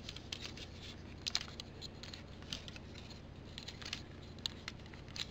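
Light plastic clicks and taps from a Takara Masterpiece Optimus Primal action figure's parts being handled and shifted by hand, scattered irregularly throughout.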